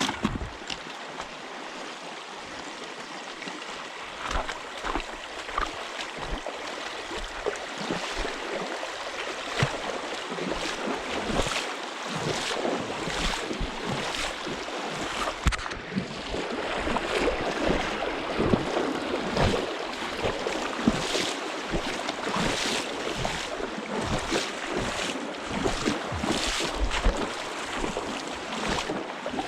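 Wind on the microphone and water washing around a boat, with frequent short knocks and clatter on the boat. The noise thickens about halfway through.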